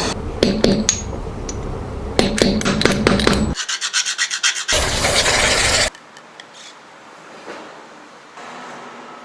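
Filing and rubbing on a chipped motorcycle part: clicks and scraping strokes, then a quick run of strokes and a loud steady rasp that stops suddenly about six seconds in, followed by quieter scraping.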